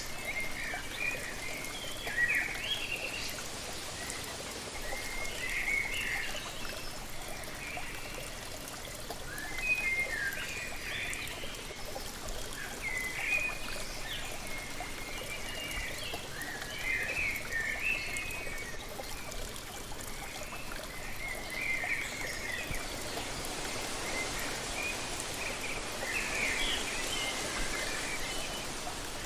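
Steady rush of a waterfall, with birds singing short chirping phrases over it every couple of seconds.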